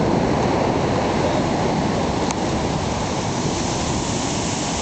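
Ocean surf washing on the beach, a steady rush of water noise.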